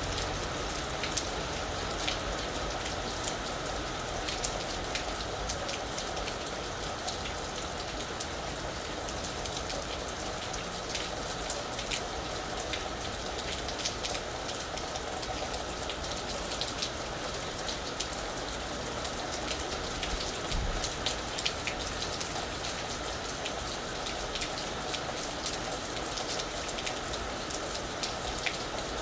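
Steady rain falling on a roof, a constant wash of noise dotted with many sharp individual drop ticks.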